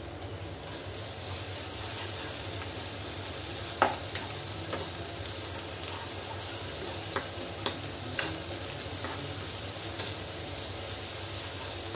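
Chopped onions and tomatoes sizzling in oil in a pan with a steady hiss, as a spoon stirs them and clicks against the pan about seven times. The loudest clack comes just before four seconds in.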